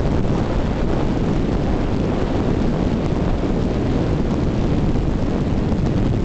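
Steady low rumbling wind noise on the microphone of a camera moving along a road, with no clear engine note.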